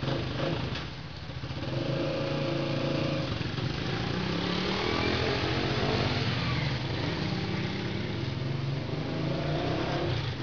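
A vehicle engine running, its pitch shifting up and down, growing louder about a second and a half in.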